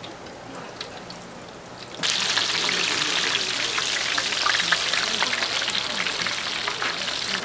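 Battered twigim deep-frying in hot oil: a steady crackling sizzle that jumps suddenly much louder about two seconds in.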